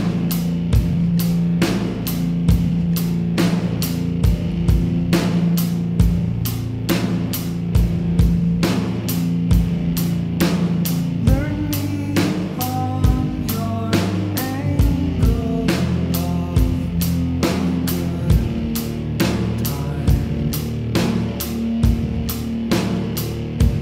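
Background music with a steady drum-kit beat over held bass notes; a wavering melodic line comes in about halfway.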